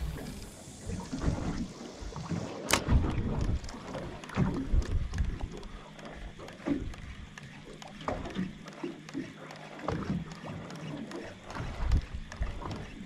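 Shallow water sloshing and splashing in irregular bursts, with wind buffeting the microphone and a sharp click about three seconds in.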